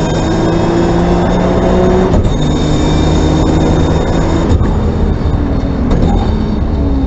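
Race car engine heard from inside the cabin, pulling hard and rising in pitch as the car accelerates, with a break about two seconds in that fits an upshift. About four and a half seconds in it lifts off as the car slows.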